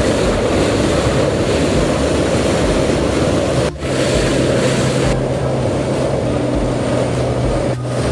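Floodwater of a swollen river rushing past in a steady roar, with wind buffeting the microphone. The sound breaks briefly twice, about four seconds in and near the end, and after the first break a low steady hum runs under the water.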